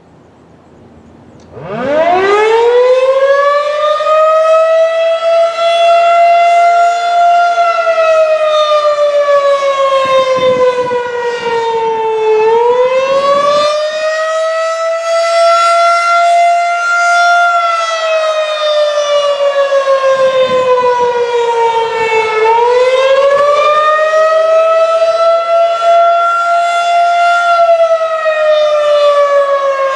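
Federal Signal 2001-SRN electromechanical siren starting up about a second and a half in, its pitch climbing quickly, then sounding the Attack signal: a wail that slowly falls and rises again about every ten seconds.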